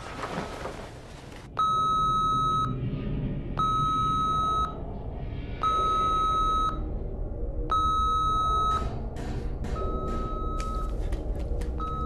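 Cordless phone answering machine beeping to signal a waiting voice message. The beeps are steady, about a second long and about every two seconds, and the last two are quieter. A burst of hiss comes at the start and a run of crackling clicks near the end.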